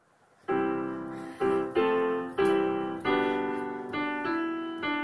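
Digital piano played with both hands, held bass notes under a simple right-hand melody, a new note struck every half second or so after the first about half a second in.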